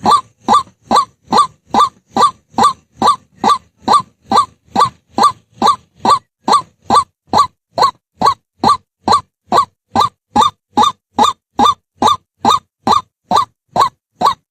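White-breasted waterhen calling: the same short note repeated evenly, about two and a half times a second, without a break.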